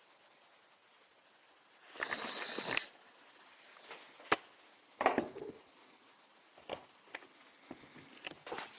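Handling noises from a Feuerhand Baby Special 276 hurricane lantern held with its globe raised: a brief rustling scrape about two seconds in, a sharp click around four seconds, another short scrape around five seconds, then a few faint clicks.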